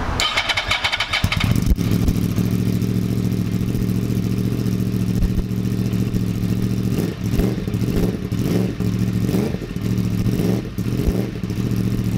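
Yamaha R1 inline-four sportbike engine on its stock headers, Graves mid-pipe and HMF slip-on mufflers, catching at the start and then idling. The throttle is blipped a few times in the second half.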